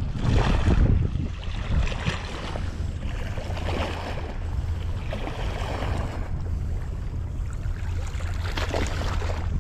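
Wind buffeting the microphone in a steady low rumble, with harbour water lapping and washing in irregular surges.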